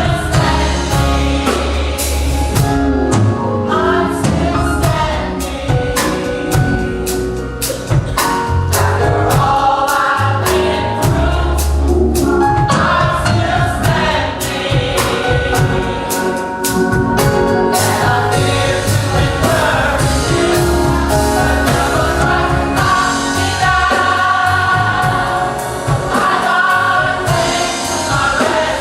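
Gospel choir singing with band accompaniment, a strong bass line and sharp, repeated percussion hits under the voices.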